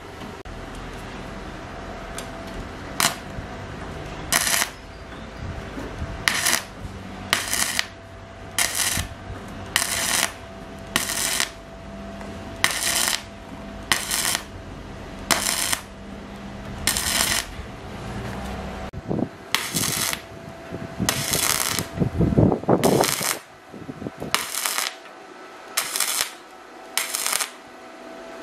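Arc welding on a rusted steel frame tube, laid in short stitches: a crackling, spitting burst under a second long, repeated roughly every second or so, with a faint steady hum between bursts. A low heavy knock sounds about two-thirds of the way through.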